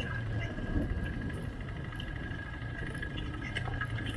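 ATV engines running steadily at low revs while rolling slowly, a low hum with a faint steady high whine above it.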